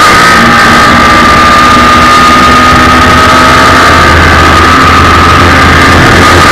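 Suzuki Hayabusa 1300 inline-four motorcycle engine in a small race car with an Akrapovic exhaust, running hard at high revs through a sequence of corners. Its pitch holds nearly steady, with only a slight dip near the start. Loud, as heard onboard.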